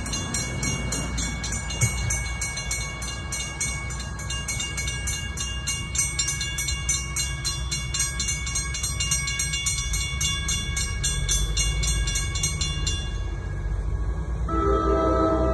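Railroad grade-crossing bell ringing in rapid, steady strokes while the gate arm lowers, falling silent about 13 seconds in once the gate is down. Near the end, an approaching train's horn sounds as a chord of several steady tones over a low rumble.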